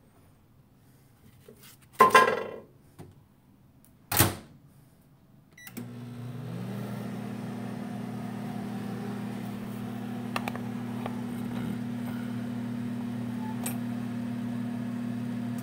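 A clunk and a sharp click as the microwave door is handled and shut, then a short beep and the GE over-the-range microwave oven starts up again on defrost, running with a steady low electrical hum, its fan coming up to speed in the first second.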